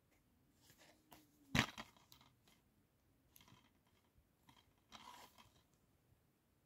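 A plastic DVD keep case handled in the hands: a sharp click about a second and a half in, a few faint ticks, and a short rustle of plastic and fingers near the end.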